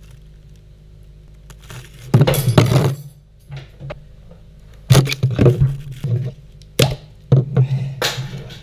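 Plastic ice cream tub and spoon being handled at an open fridge: irregular knocks, clinks and scrapes in several short bursts, over a steady low hum.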